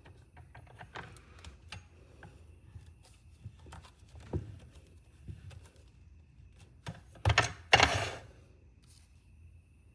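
Scattered light clicks and taps of small pen-kit parts being handled and fitted into the wooden pen barrel during assembly, with a louder brief rasping burst about three-quarters of the way through.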